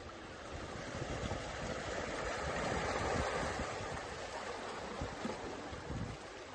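Water rushing, swelling to a peak about three seconds in and easing off again, with a low buffeting rumble of wind on the microphone underneath.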